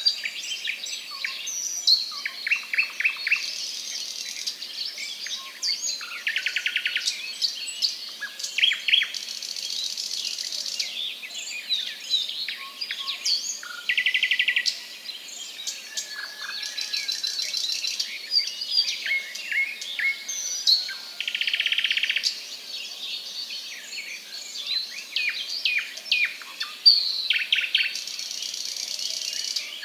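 Small birds chirping and twittering busily in short high calls, with a quick rattling trill every several seconds. A high hiss comes and goes for a couple of seconds at a time.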